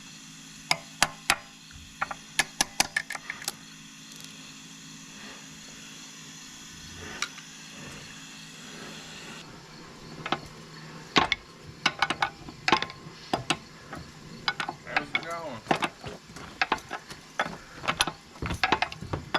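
Metal tools clicking and clanking on the excavator's hydraulic hose fittings as a fitting is threaded on and tightened with a wrench. There are irregular clicks at first, a quieter stretch in the middle, then busier clicking with a few short squeaks in the second half.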